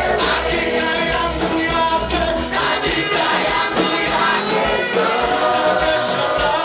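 A gospel praise band playing with several voices singing together, over a steady beat and bass.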